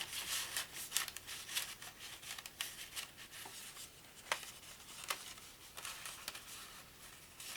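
Thin paper and cardboard game pieces being handled: soft rustling with scattered small clicks and taps.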